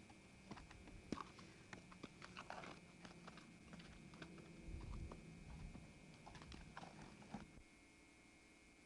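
Faint, irregular hoofbeats of an Arabian stallion moving over sandy dirt, a scattering of soft knocks and clicks that stop about seven and a half seconds in, leaving a faint steady hiss.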